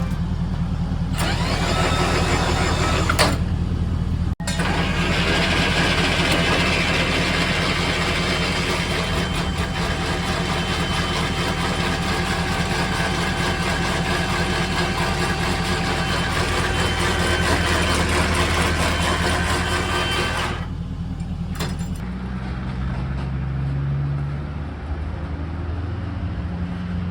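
Pressure washer engine running steadily, with a few abrupt changes in its sound where separate takes are joined.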